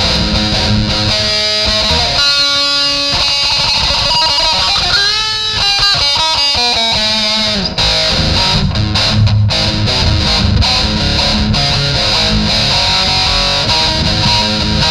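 Distorted electric guitar playing: sustained notes, with a passage of notes bent up and down in pitch about five to seven seconds in.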